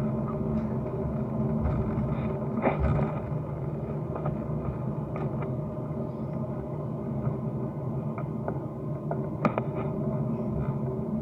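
Steady low rumble of a vehicle running, with a constant hum and a few light clicks, the sharpest about nine and a half seconds in.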